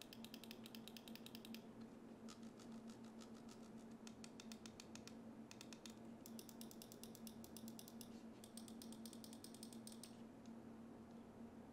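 Buttons of a G-Wolves HSK Pro 4K wireless mouse, on Zippy 60M switches, clicking faintly in rapid runs: four bursts of fast clicks with short pauses between, stopping about ten seconds in.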